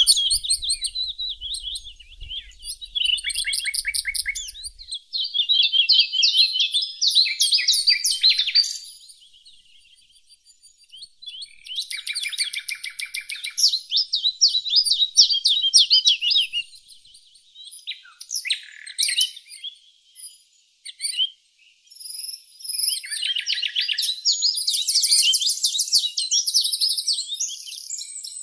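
Songbirds singing: phrases of fast trills and chirps a few seconds long, with short pauses between them.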